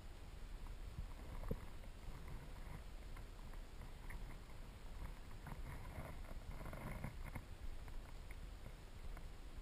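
Underwater river ambience: a low rumble of flowing water with scattered small clicks and ticks, one sharper knock about one and a half seconds in, and a spell of denser crackling a little after halfway.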